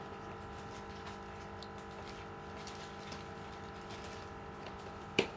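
Faint light clicks and taps of a replacement glass crystal being handled and pressed onto the dial of a Mitutoyo dial caliper, over a steady background hum. One sharp click near the end.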